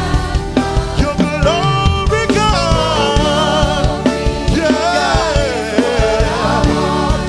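Gospel worship music: a singer's wavering melody over a band with a steady drum beat.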